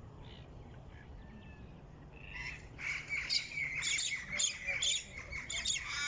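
Birds calling in eucalyptus trees: a few faint chirps at first, then from about two seconds in a loud, rapid run of calls that keeps going.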